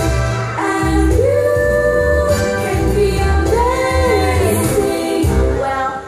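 A woman singing a show tune with instrumental accompaniment, holding long notes.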